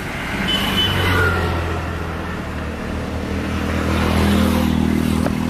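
Motor vehicles passing on a highway: a low engine drone that swells about a second in and again near the end.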